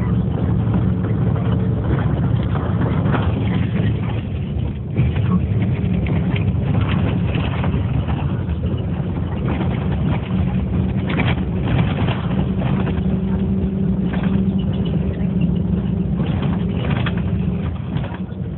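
Steady low rumble of a running motor vehicle's engine, holding an even tone throughout.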